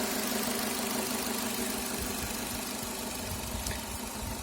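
Renault F4R 2.0-litre four-cylinder petrol engine idling steadily.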